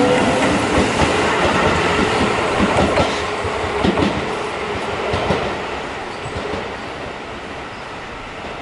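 Keio 8000 series electric train pulling away: wheels clattering over rail joints and a rumble that fades steadily as the last car passes and recedes. The rising tones of its Hitachi GTO inverter die away right at the start.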